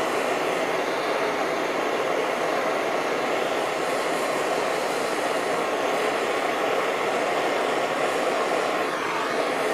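Hand-held propane torch burning with a steady rushing hiss, its flame heating a brass lamp font to melt solder around a plug.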